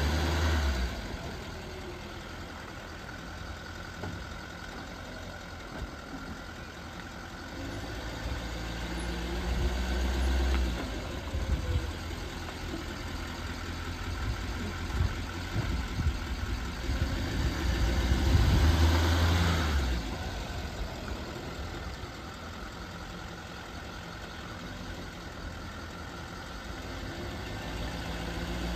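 Duramax 6.6 L turbo-diesel V8 of a 2016 Chevrolet 2500HD idling steadily, swelling louder twice, about nine and nineteen seconds in.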